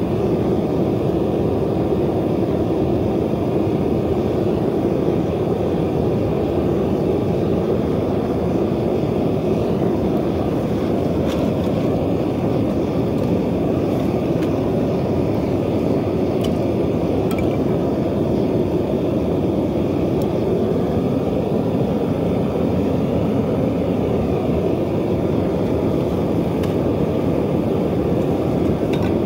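Propane burner firing into a refractory-lined bucket foundry, a steady roar, while aluminium scrap melts in the crucible. A few faint metallic ticks come through in the middle as pieces are set into the crucible with tongs.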